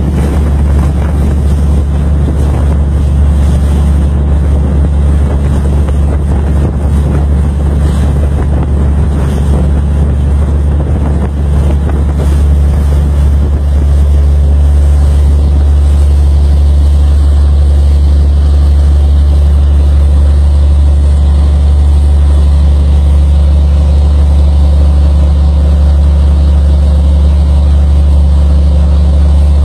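Boat engine running with a steady, loud, low drone. Wind buffets the microphone over roughly the first half, then the drone is left steady on its own.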